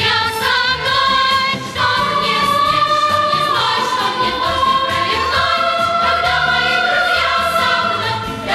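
Background music: a slow melody in long held notes over a soft accompaniment.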